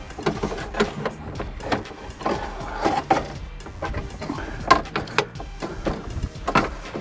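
Irregular clicks, knocks and rattles from hands working on car door parts.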